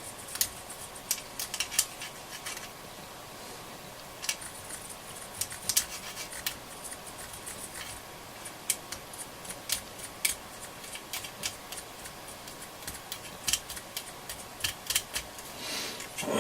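Fibreglass pencil scrubbing tarnish off a transistor radio's amplifier pins: irregular small scratches and clicks of the pencil on metal.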